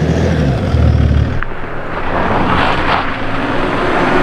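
Mercedes-Benz GLE 350d SUV with its six-cylinder diesel, driving on a gravel track: engine and tyre noise on gravel, swelling as the car comes closer about two and a half seconds in. Before that, a steady low engine hum cuts off abruptly about a second and a half in.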